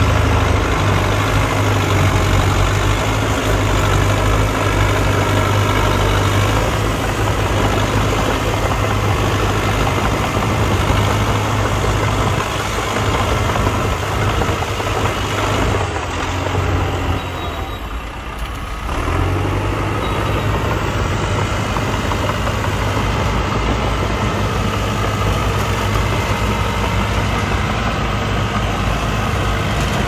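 Diesel engine of heavy earthmoving machinery running steadily with a strong low hum. The sound dips briefly a little past halfway, then comes back at the same level.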